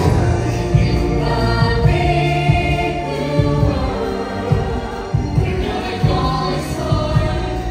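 Stage musical number: a chorus of singers over a heavy bass line and a steady beat, played loud.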